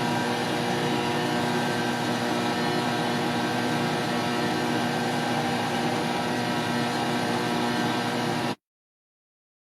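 A motor-driven machine running steadily with a hum under a hiss, cut off abruptly about eight and a half seconds in.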